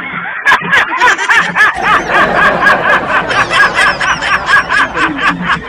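High-pitched laughter: a long, unbroken run of quick giggles, about four to five a second.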